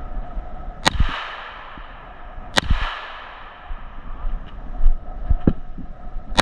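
Gunshots from a firearm: two sharp shots about a second and a half apart, each trailing off in a long echo, then a few fainter knocks and another shot right at the end.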